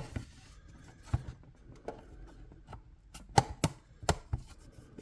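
Hard plastic model-kit parts clicking and knocking as they are handled and pressed together, a string of separate sharp clicks at uneven intervals, the loudest a little past the middle.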